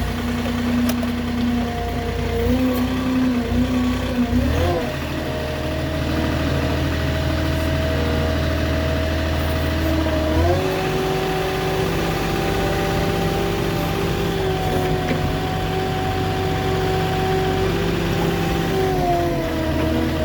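Diesel engine running just after starting, its speed stepping up and down several times, with steadier stretches in between.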